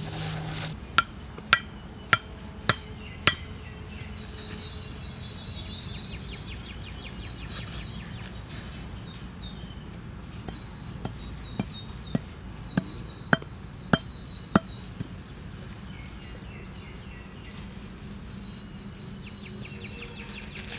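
Wooden stakes being knocked into the ground with sharp, evenly spaced strikes, a little under two a second: about five in the first few seconds, then about eight more around the middle. Insects trill and a bird chirps now and then in the background.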